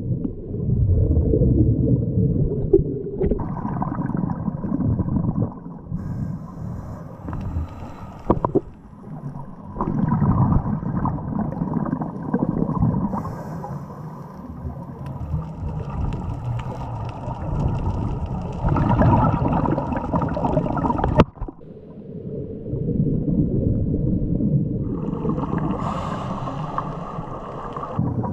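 Scuba breathing heard underwater: exhaled bubbles from a regulator gurgle and rumble in long surges every several seconds, with quieter, hissier stretches between them.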